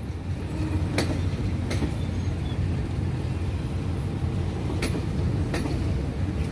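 Passenger carriages rolling slowly along the track: a steady low rumble, with the wheels clacking over rail joints in pairs, twice.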